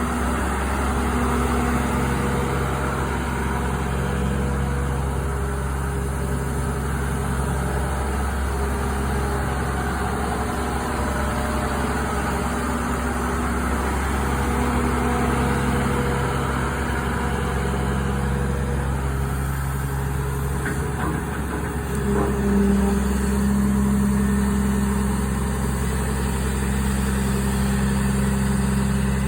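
Hydraulic excavator running steadily, its engine and hydraulics humming, while a bad noise from its swing motor is sought. About three-quarters of the way in, a few faint clicks come and a louder steady hum sets in.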